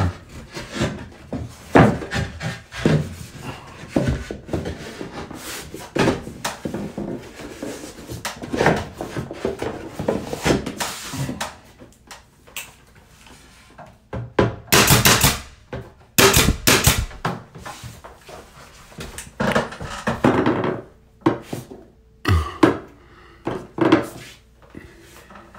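Wooden crown molding being handled and fitted at a mitered corner: irregular knocks, taps and rubbing of the molding against the wall, ceiling and the mating piece, with a louder run of knocks about fifteen seconds in.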